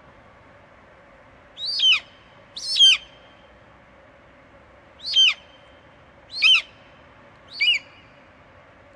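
A bird calling five times: short cries, each falling in pitch, spaced one to two seconds apart, over faint steady background noise.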